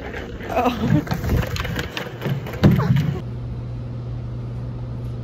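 Self-balancing hoverboard rolling across a tiled floor: a steady low hum, with scattered knocks and clatter in the first three seconds.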